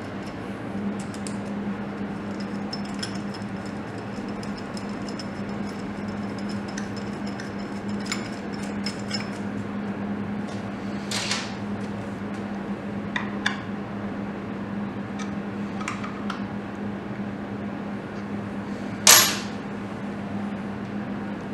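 Small metal clicks and taps as nuts are fitted by hand onto the studs of an aluminium sensor bracket on a motorcycle engine, with one loud sharp clack about nineteen seconds in. A steady low hum runs underneath.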